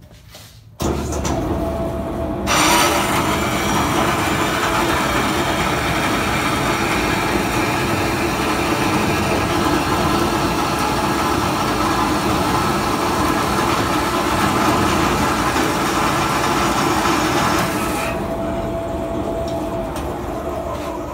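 Vertical bandsaw starting up about a second in; from about two and a half seconds its blade cuts through a steel bar with a loud, steady cutting noise. The cut ends a few seconds before the end and the saw runs on more quietly, its pitch falling.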